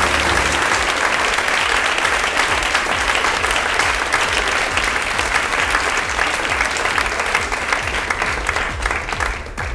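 Audience applauding steadily, a dense patter of many hands clapping that starts to die away near the end.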